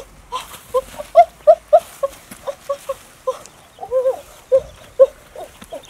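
Quail calling in a rapid series of short, clipped notes, several a second, a few of them rising and falling.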